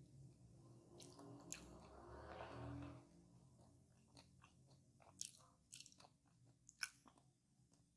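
Close-up chewing of a crispy fast-food pie, with sharp crunches scattered through it; the sharpest comes near the end.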